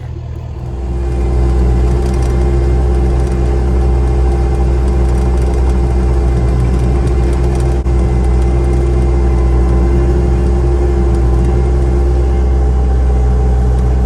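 Truck engine hauling a load of logs, picking up over the first second or so and then running steadily at road speed with a deep drone and a steady whine above it.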